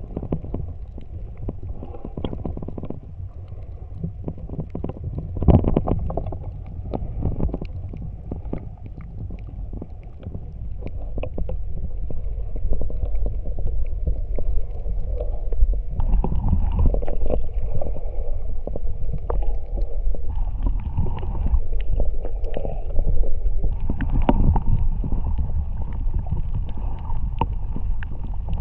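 Muffled underwater rumble and water movement picked up by a submerged camera, with many faint scattered clicks and crackles; it grows louder about halfway through.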